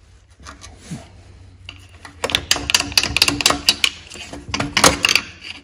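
Rapid metallic clicking and rattling of pliers working the governor springs and linkage on a Briggs & Stratton Intek engine, starting about two seconds in.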